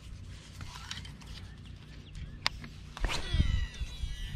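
A cast with a baitcasting rod and reel: a sharp click, then about three seconds in a swish of the rod followed by the reel's spool whirring as line pays out, its pitch falling as the spool slows.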